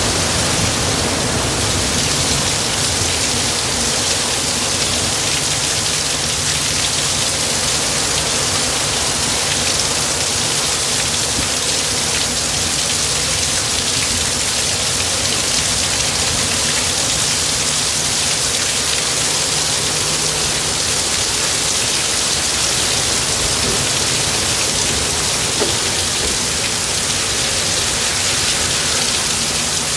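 Heavy downpour in a severe thunderstorm: a steady, even hiss of rain falling on trees, lawn and street.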